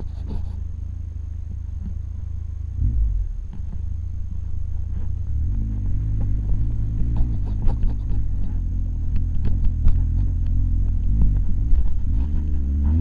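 Triumph Explorer 1200 motorcycle's three-cylinder engine pulling at low speed over rough dirt, its note rising and falling, under a steady low rumble. Scattered short knocks come from the bike over the rough ground.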